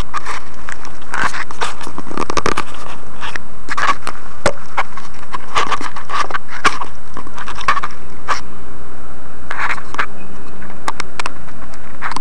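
Loud, clipped crackling with irregular pops: the overloaded microphone of a small FlyDV camera mounted on a T-REX 500 RC helicopter. A faint low hum joins about eight seconds in.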